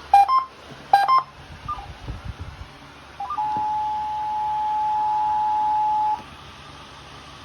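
Short electronic beeps in the first second or so, then a steady single-pitched Emergency Alert System attention tone lasting about three seconds that cuts off sharply, signalling an Amber Alert child-abduction message to follow.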